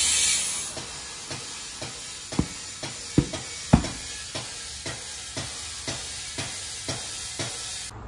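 Compressed air hissing through a clip-on air chuck into a tire being inflated on a tire changer: a loud rush that drops off about half a second in, then a fainter hiss with a run of sharp clicks about twice a second, the loudest few between two and four seconds in.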